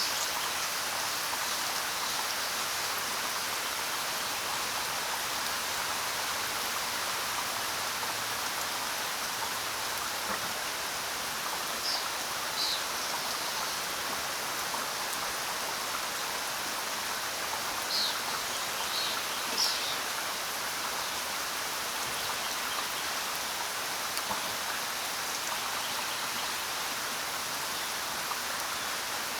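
Steady rain falling, an even hiss. A few short, high bird chirps come through it about 12 seconds in and again around 18 to 20 seconds in.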